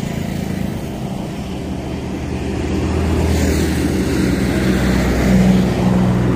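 A vehicle engine running steadily, its hum growing louder about halfway through and holding there.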